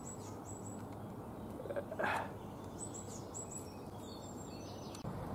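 Small birds chirping in short, quick series of high notes over a steady outdoor background hiss, with a brief rustle about two seconds in.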